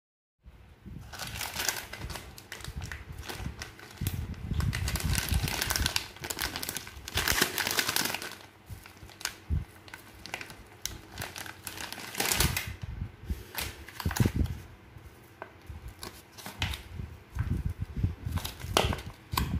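Plastic wrapper of a Samyang Hot Chicken Flavor Ramen packet crinkling and rustling in irregular bursts as it is handled by hand, with a few sharper crackles and knocks.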